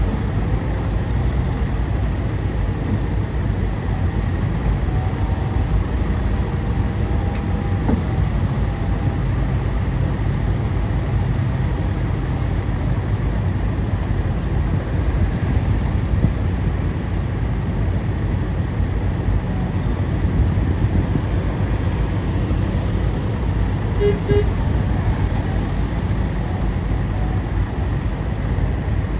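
Bulldozer's diesel engine running steadily, a low rumble that keeps an even level throughout.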